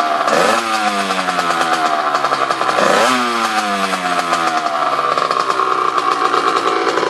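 Kawasaki 80 cc two-stroke dirt bike engine being revved while stationary. The throttle is blipped twice, about half a second and three seconds in, and the revs sink slowly back after each. It then runs steadier at higher revs.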